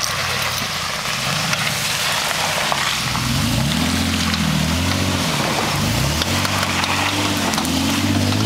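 Ford Ranger pickup's engine straining up a wet, muddy hill, revving up and down repeatedly from about three seconds in, over a steadier note before that. Its tires are spinning and spattering mud throughout.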